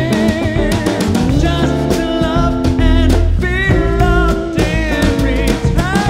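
Small jazz band playing: a male voice sings with vibrato over upright double bass and drum kit.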